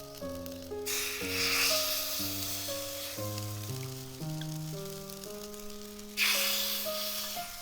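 Food sizzling as it fries in hot oil, in two stretches: one beginning about a second in and dying down, another starting suddenly near the end. Background music with a simple melody plays throughout.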